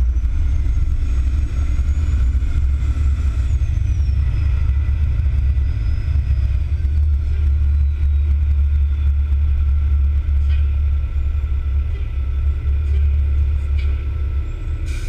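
Fire tanker truck's engine and road noise heard from aboard while it drives, a steady low rumble, with a few faint ticks in the last few seconds.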